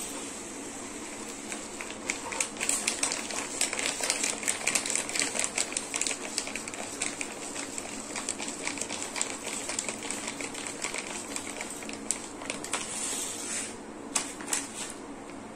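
Chia seeds pouring from a plastic pouch into a steel bowl of milk: a rapid, uneven patter of tiny clicks and rustles, thinning out near the end.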